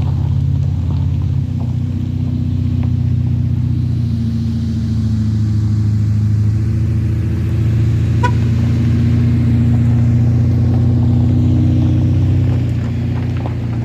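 Motor vehicle engine running steadily under way, a loud low drone that swells a little in the middle and eases off near the end.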